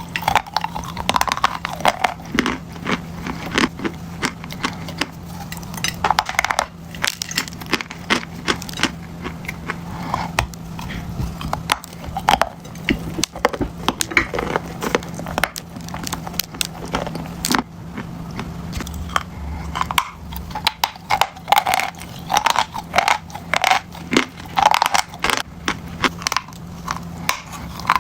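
A person biting and chewing crunchy chalk close to the microphone: dense, irregular crunches and crackles of the crumbling pieces, with a faint steady low hum underneath.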